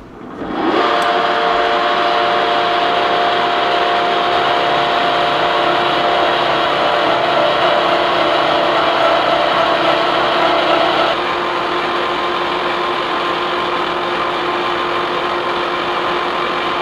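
Lucas horizontal boring mill started from its pendant control: the motor spins up with a rising whine, then the machine runs steadily with a gear whine over mechanical noise. Around eleven seconds one tone drops out and it gets a little quieter.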